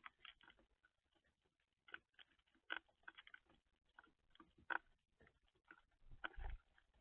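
Faint, irregular clicks and taps of a bird pecking and picking through seed on a feeder, with a louder duller knock near the end.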